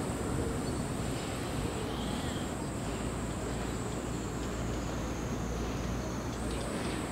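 Cicadas in a steady, high-pitched summer drone that shifts pitch slightly twice, over a low steady background rumble.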